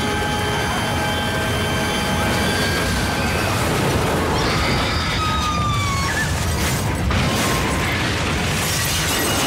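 Dramatised tram crash: a heavy, continuous rumble as a tram derails and falls from a viaduct, with high, falling screeches about three to six seconds in.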